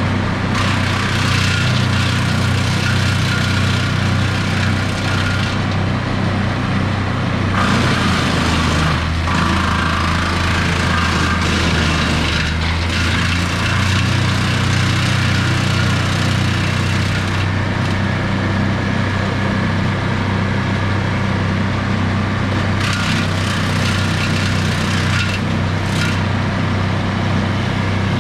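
An engine running steadily at a constant speed, its pitch dipping briefly about a third of the way in, with stretches of harsher, hissing noise over it.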